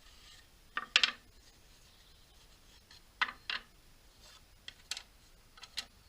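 A series of short, sharp knocks and clacks of hard objects being handled and set down: a quick cluster about a second in, a pair in the middle, and a few lighter ones near the end.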